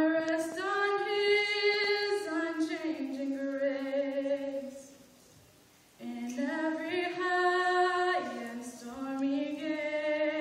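A woman singing unaccompanied, in two long phrases of sustained notes that step up and down in pitch, with a short pause for breath about halfway through.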